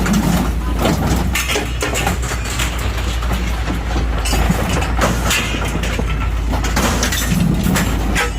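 Excavator's diesel engine running under load while its hydraulic demolition shear crunches and tears through the sheet steel of a truck cab, with irregular cracks and creaks of metal giving way.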